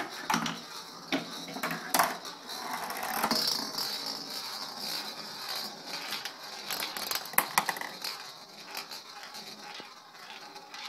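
Marbles rolling and rattling through a homemade marble run of cardboard tubes, bottles and cups, with sharp clicks as they knock against the pieces. The louder knocks come about two seconds in and again past seven seconds.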